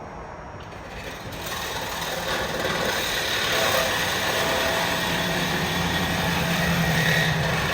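A motor vehicle engine running, growing louder over the first couple of seconds and then holding steady with a low hum.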